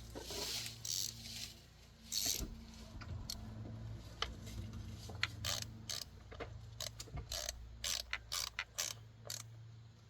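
Ratchet wrench on an extension clicking in short, uneven runs as a bolt is run down and tightened.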